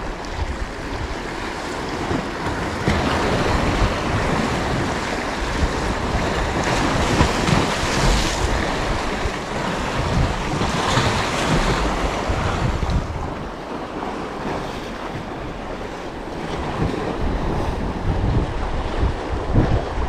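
Sea surf washing on the shore, with wind buffeting the microphone as a low rumble. The surf swells louder a few times through the middle.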